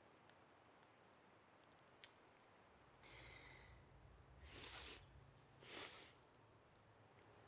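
A person breathing in nervous bursts: a soft breath, then two sharp, hissy breaths about a second apart, over a quiet background with a faint click about two seconds in.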